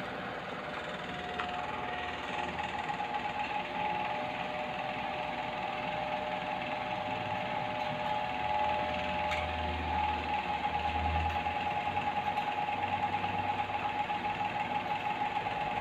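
A small motor humming steadily, taking on a fast, even flutter about halfway through.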